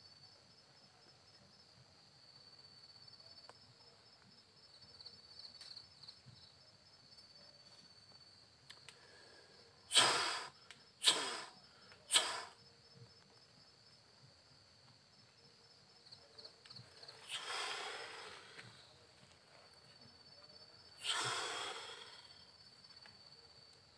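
Crickets chirping steadily in the background. A person blows out sharp puffs of breath: three quick puffs about ten seconds in, then two longer hissing exhalations near the end.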